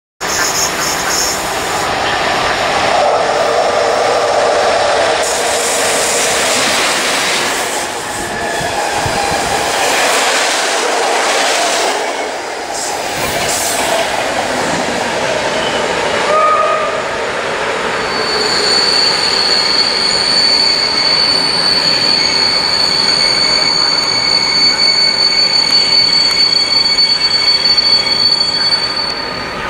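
Passenger train running along the platform, the coaches' wheels and rails giving a loud rushing noise with brief squeals. From a little past halfway, a steady high-pitched whine with several tones comes in as a PKP Intercity EU44 Husarz (Siemens Taurus) electric locomotive approaches.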